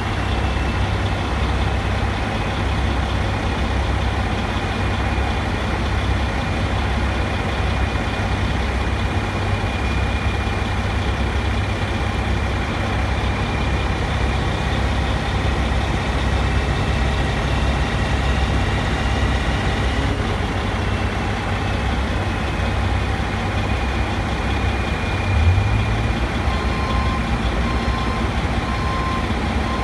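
Engine of heavy construction lifting equipment running steadily with a deep rumble, a faint high whine slowly drifting in pitch above it. A single low thump about 25 seconds in, then a warning beeper starts repeating near the end.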